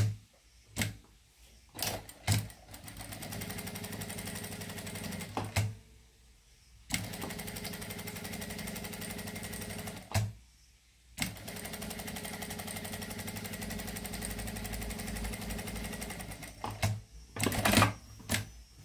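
Industrial lockstitch sewing machine stitching lace onto cotton fabric in three steady runs of a few seconds each, with short pauses between them. A few sharp clicks and knocks come at the start and near the end.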